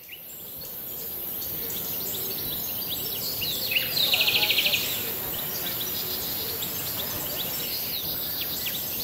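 Outdoor ambience of birds and insects: a steady high insect buzz under scattered bird chirps, with a fast trill lasting about a second near the middle. It fades in over the first couple of seconds.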